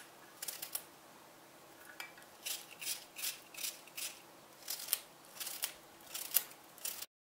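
Small kitchen knife slicing through a hand-held cucumber that has been scored into a grid, shaving off tiny cubes. A quick series of short, crisp cuts, a few a second, with a pause about a second in. The sound cuts off suddenly near the end.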